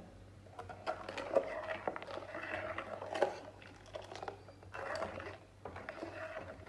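Long metal spoon stirring sugar into almond milk in a stainless steel pan, scraping and clinking against the pan in several short bouts, with milk splashing as it is lifted and poured back.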